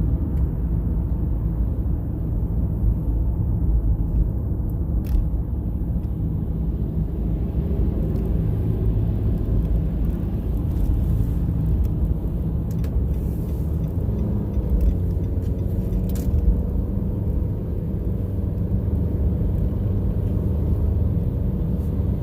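Steady low rumble, with a faint hum above it that shifts slightly in pitch about two-thirds of the way through, and a few faint clicks.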